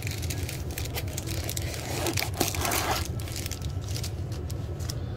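Crackling, crinkling handling noise of a disposable noodle cup being held and moved, thickest about two to three seconds in, over a steady low hum.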